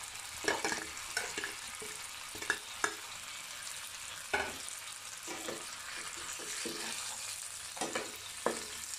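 Chicken pieces frying in a hot frying pan with a steady sizzle. A metal spatula scrapes and knocks against the pan now and then as the fried chicken is tipped into the onion, tomato and sauce mixture and stirred.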